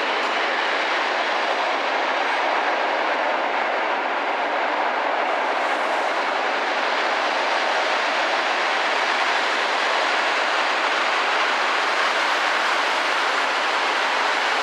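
Locomotive-hauled passenger train rolling past, an electric locomotive and then a line of coaches: a loud, steady, even noise of wheels running on the rails.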